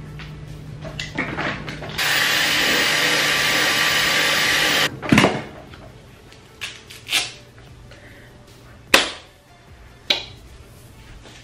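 A hair dryer runs for nearly three seconds with a steady rush, switching on about two seconds in and cutting off abruptly: drying the lace-wig glue. Then four light knocks and clicks of things being picked up and set down.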